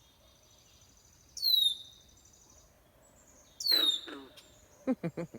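A bird calling twice, each a short high note that slides steeply down and levels off, about a second and a half in and again near four seconds. A thin, high, steady note sounds through the first second or so.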